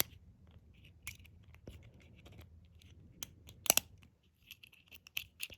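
Metal lock pick and tension wrench scratching and clicking inside the pin-tumbler keyway of a brass Master Lock 140 padlock during single-pin picking, with a close pair of sharper clicks nearly four seconds in.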